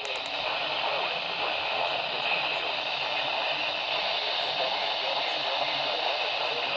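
Steady hiss of radio static from a weather radio on weak reception, covering the broadcast warning.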